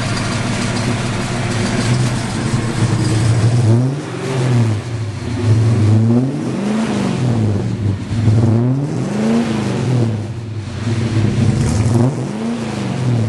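1965 Plymouth Barracuda's engine running through a stainless steel dual exhaust with an X-pipe and Magnaflow mufflers: a steady idle, then four quick revs, each rising and falling back to idle.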